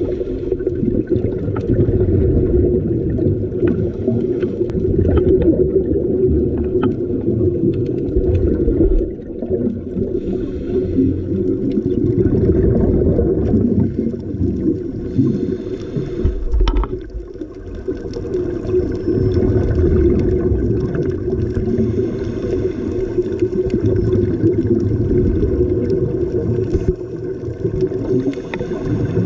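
Muffled underwater noise picked up through a camera's waterproof housing: a steady low rumble with gurgling from scuba divers' exhaled regulator bubbles, swelling and easing every few seconds.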